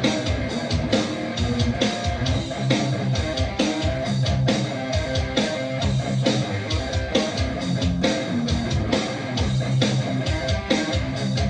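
Electric guitar played through an amplifier, improvising a continuous stream of quick picked notes.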